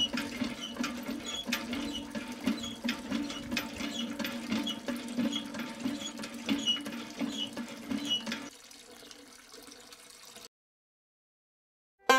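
Small electric water pump humming steadily with a regular light ticking, roughly every two-thirds of a second, while water runs from its tube into a trough. The pump sound drops away about eight and a half seconds in.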